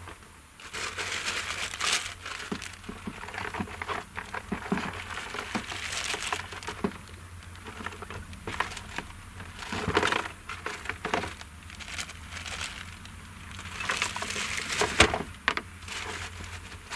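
ROPA Maus 5 sugar beet cleaner-loader at work. A steady low engine hum runs under an irregular rattling clatter of beets tumbling along the conveyors and dropping into the truck, swelling in several louder bursts.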